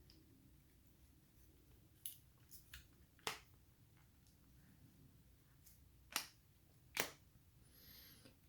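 Scattered sharp clicks and snaps of a smartphone being pressed into a rugged plastic case, the loudest about three seconds in and two more a little after six and seven seconds, with long quiet gaps between.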